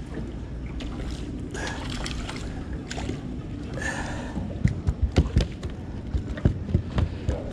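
A steady low wash of water, then a run of irregular sharp knocks and taps starting a little past halfway.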